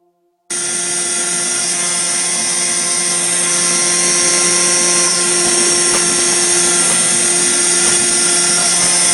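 CNC router spindle running at high speed, its end mill cutting a brass plate: a steady high whine over dense cutting noise that starts suddenly about half a second in.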